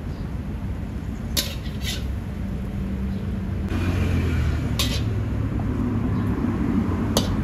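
Steady low kitchen rumble with four sharp metal clinks of cookware spread across the few seconds.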